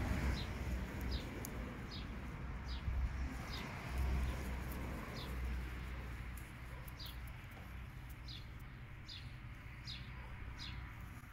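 A small songbird calling over and over, short high chirps that each drop slightly in pitch, with a low rumble underneath.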